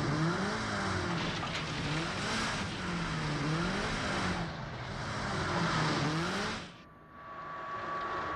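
Car engines rising and falling in pitch over and over, with tyres skidding and spinning in dirt. Near the end the sound cuts briefly lower, then a steady high whine comes in.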